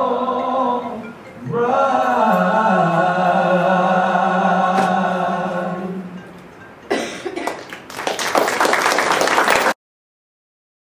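Voices singing a long held final chord that fades away about six seconds in. Then audience applause for about three seconds, which cuts off abruptly.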